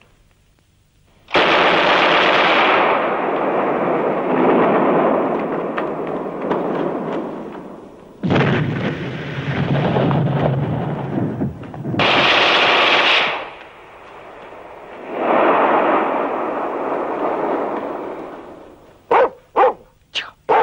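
Shell explosions: four sudden loud blasts a few seconds apart, each dying away slowly with a long rumble. Near the end a dog barks several times in quick succession.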